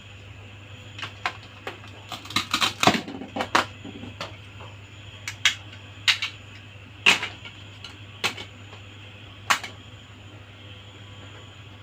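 Small plastic toy pieces clicking and tapping as they are handled: a quick run of clicks about two to four seconds in, then single clicks every second or so over a steady low hum.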